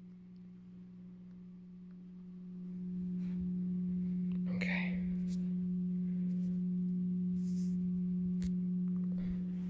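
Synthesized Thunderbolt 1000T siren tone, its low-pitch port sound generated in Audacity and played through a karaoke speaker: a steady low hum that swells in volume about two to three seconds in, then holds at one pitch.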